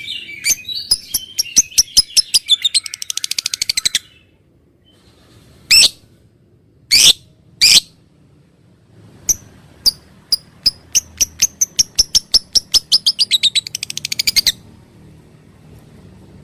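Lovebird calling: sharp chirps that speed up into a fast chattering trill, then three loud harsh calls. Then another run of chirps speeds up into a trill that stops abruptly about two seconds before the end.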